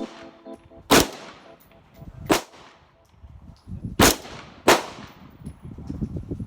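Four gunshots, irregularly spaced, the last two in quick succession, each trailing off in a short echo.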